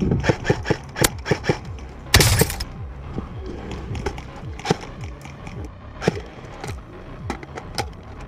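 A run of sharp cracks at uneven spacing, with a longer hissing burst about two seconds in.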